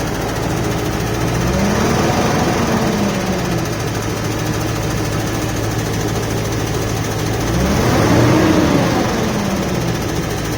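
Vehicle with a 4L60E automatic transmission running, its engine speed rising and falling twice, with a knocking, ticking noise that the owner puts down to the 4L60E transmission.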